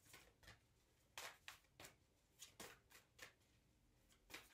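A deck of oracle cards being shuffled overhand by hand: faint, irregular soft slaps and slides of cards dropping from one hand onto the other, several times over.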